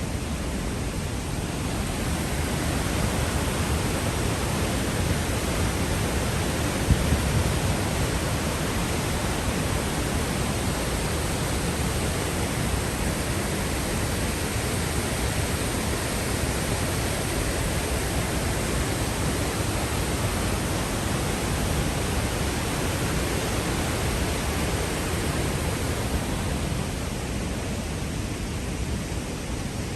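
Steady roar of rushing water from the Peričnik waterfall, running high after heavy rain.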